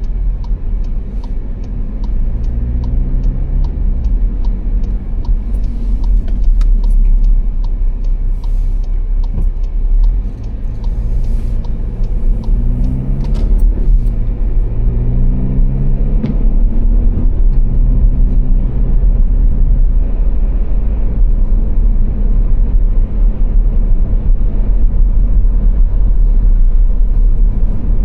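Car interior on the motorway at night: steady low road and engine rumble, with the engine pitch rising and dropping back several times as the car accelerates through the gears. A regular ticking, the turn indicator, sounds over the first six seconds or so.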